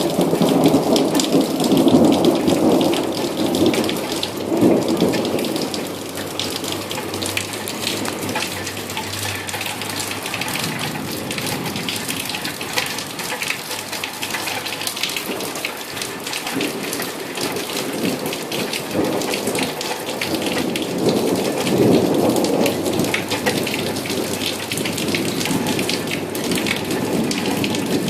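Heavy rain pouring steadily during a thunderstorm, with thunder rumbling in the first few seconds, again about three-quarters of the way through, and once more near the end.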